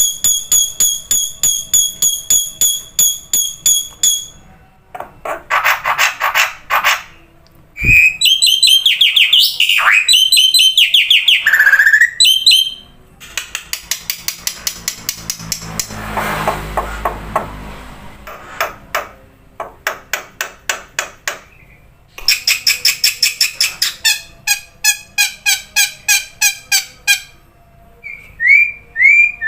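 Black-winged myna (jalak putih) singing a loud, varied song. It mixes rapid runs of repeated notes, whistles that rise and fall in pitch, and a harsh rasping stretch in the middle.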